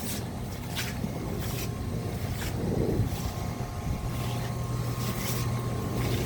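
Pressure washer running steadily, its engine humming under the hiss of the water spray, which swells about once a second as the wand sweeps.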